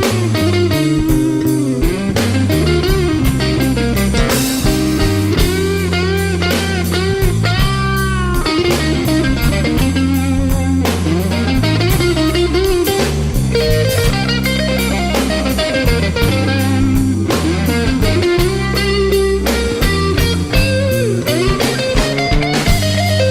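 Electric blues band playing an instrumental break: a lead guitar bends and sustains notes over a steady bass line and drum kit.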